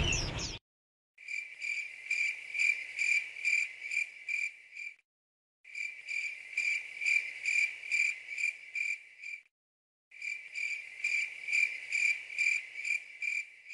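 Cricket chirping in three runs of about four seconds, each a regular string of high chirps at about two and a half a second, cut apart by dead silence as an edited-in sound effect. The preceding sound cuts off about half a second in.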